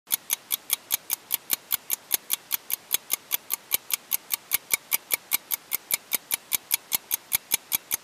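Fast, even ticking sound effect, about five sharp ticks a second, unbroken throughout.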